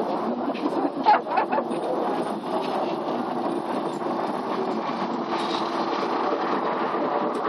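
Steady street traffic noise as a police car rolls slowly past at close range, its engine at low speed, with a few brief clicks about a second in.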